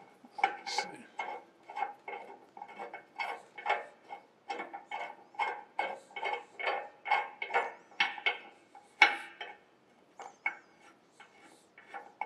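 A hand wrench working a steel nut on a bolt, giving repeated metallic clinks about twice a second as the jam nut is run down against the plate, growing fewer and quieter near the end.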